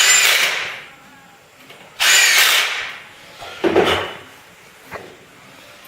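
A power drill or screwdriver run in two short bursts about two seconds apart, each starting sharply and dying away, as bolts are driven during reassembly of the magnet generator. A lower knock follows, with small clicks of parts being handled.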